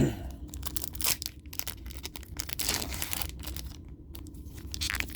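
A foil booster pack of trading cards being torn open, its wrapper crinkling in irregular rasps, after a soft knock at the start.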